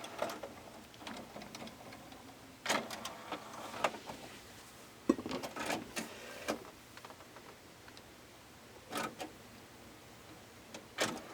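Pioneer CT-M6R multi-cassette deck rewinding its tapes: faint mechanism running, broken by irregular clicks and clunks as the changer shuttles each cassette in and out.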